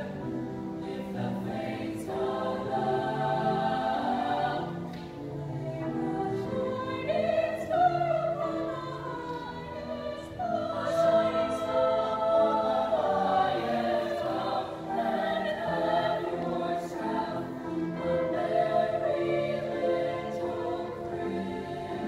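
Mixed choir of teenage voices singing a Christmas medley in harmony, several parts on held notes together.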